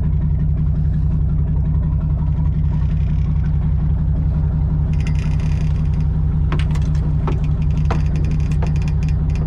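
A boat engine droning steadily at a low pitch, with a few sharp clicks and knocks in the second half.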